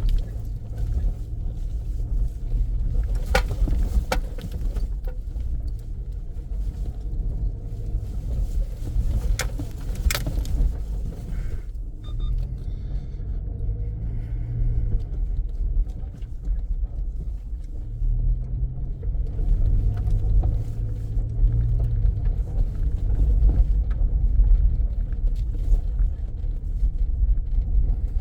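Car driving slowly on a rough dirt road: a steady low rumble of engine and tyres, with a few sharp knocks in the first ten seconds. The engine's hum stands out twice in the second half.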